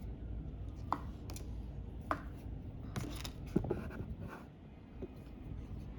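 Tarot cards being handled: a series of light taps and scrapes, several irregular clicks a second or so apart.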